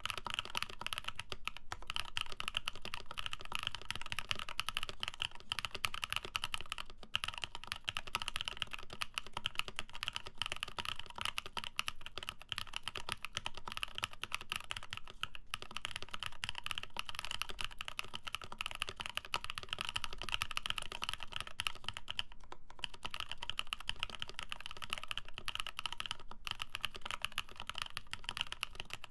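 Continuous fast typing on a J-01 custom mechanical keyboard with lubed Prevail Epsilon tactile switches on an FR4 plate, under GMK doubleshot ABS keycaps, with a few brief pauses between bursts.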